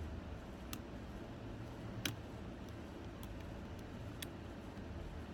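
Small, sharp clicks of a hook pick working the pins of a pin-tumbler challenge lock: a few scattered ticks, the loudest about two seconds in, over a low steady hum.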